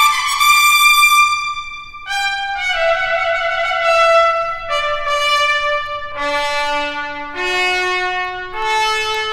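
Solo trumpet playing a phrase of held notes. It opens on a high note reached by an upward slur, steps down through several notes to a low one about six seconds in, then climbs back up in steps.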